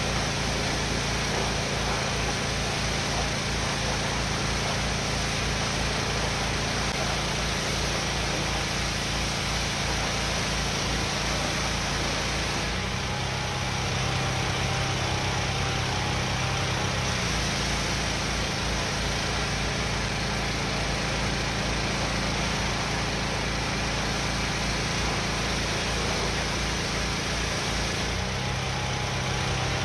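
Pressure washer running steadily, its motor hum under the hiss of the water spray; the hum shifts in tone for a few seconds about halfway through and again near the end.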